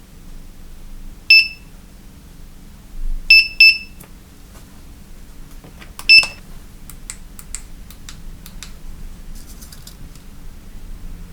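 Sonoff T1 UK touch light switch's built-in beeper giving short, high beeps: one, then two in quick succession, then one more, as it responds to its touch pads. A few light clicks follow.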